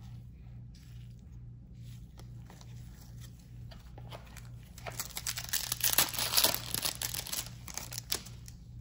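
A shiny foil trading-card pack wrapper (Topps Chrome Garbage Pail Kids) being torn open and crinkled, a dense crackling tear starting about five seconds in and lasting about three seconds.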